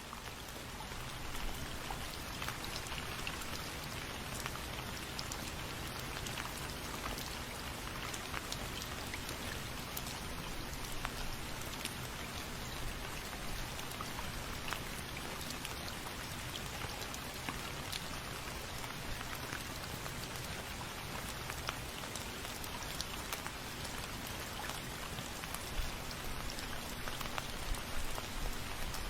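Steady rain falling, with individual drops ticking through the hiss. It fades up over the first second or so, then holds level.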